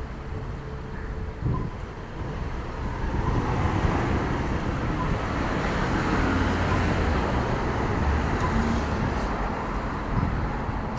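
Road traffic passing on a city street: a steady rumble of cars, swelling as vehicles pass close through the middle and easing off towards the end.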